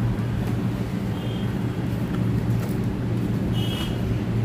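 A steady low mechanical hum, like a motor running, with a few light clicks and rustles as a cardboard box is cut open with scissors and its flaps handled.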